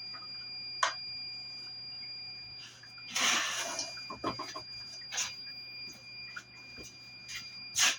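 Hands working on a blade sharpener: sharp clicks about a second in and near the end, a brief scraping rush around the middle, then a few light knocks, over a steady high-pitched whine.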